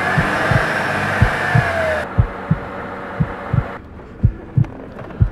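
A slow heartbeat sound effect of paired low thuds repeating throughout. For the first two seconds it runs under a loud wash of hissing radio static with wavering, siren-like tones, the broadcast's warning noise, which cuts off abruptly.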